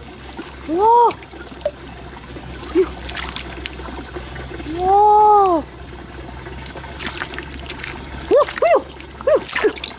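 Shallow muddy stream trickling and splashing as hands dig into the wet mud of its bank. A woman's short wordless exclamations rise and fall over it: one about a second in, a longer drawn-out one around the middle, and several quick ones near the end.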